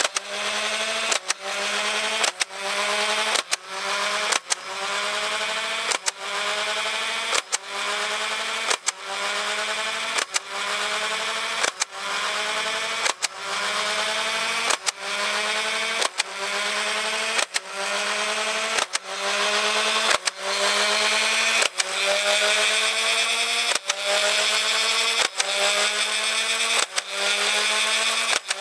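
Nerf Ultra One blaster's motor-driven flywheels whirring steadily, with a sharp click and a drop in pitch about every 1.3 seconds as each dart is fired. After each shot the whine climbs back up as the flywheels spin up again. This is rapid repeated firing to empty the drum.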